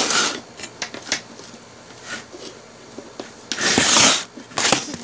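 Rustling and light clicks of toy train set pieces being handled and fitted together, with louder rustling at the start and again about three and a half seconds in.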